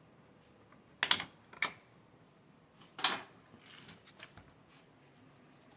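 Sharp clicks and light clatter of small metal chainsaw parts and hand tools being handled during clutch work: three distinct clicks in the first few seconds, then a few softer ticks and a short rustle near the end.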